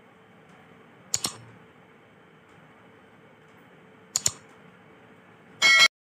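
Two sharp clicks about three seconds apart over a faint steady hum, then a short, loud, ringing burst just before the end.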